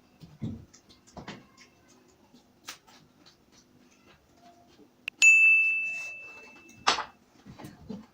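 Metal ringing from a utensil striking a metal plate or bowl while eating papri chaat: a sharp clink about five seconds in rings on with a clear high tone and fades until another knock cuts it off, after a few soft knocks earlier.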